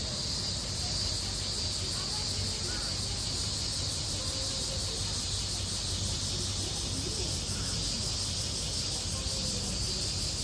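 Steady outdoor ambience: a continuous high-pitched insect drone over a low steady hum, with faint far-off voices now and then.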